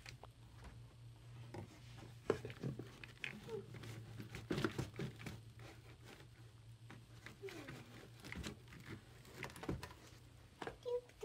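A cardboard toy box and plush toys being handled and set down inside a wooden toy chest: scattered rustling and crinkling with light knocks.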